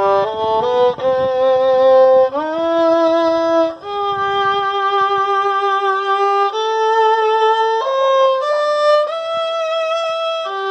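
Solo violin bowed one note at a time: a few quicker notes, then long held notes from about two seconds in, each stepping to a new pitch every second or two.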